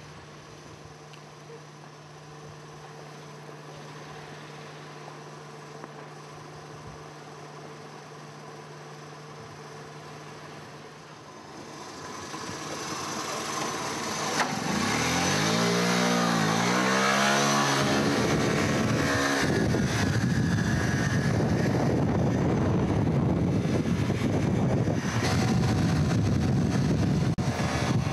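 A low steady hum. About halfway through, noise swells and a motor vehicle engine revs, its pitch swinging up and down several times, then gives way to a loud steady rushing noise.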